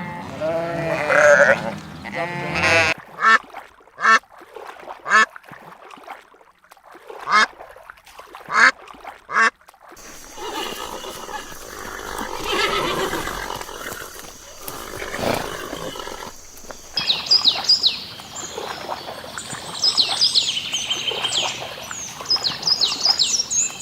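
A run of different animal calls one after another: wavering bleats at the start, then short separate calls, then high chirping calls in the last several seconds.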